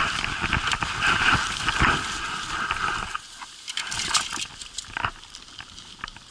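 Footsteps crunching through snow, with the jacket and backpack straps rubbing and rustling close to the microphone. It is loudest in the first three seconds, then quieter.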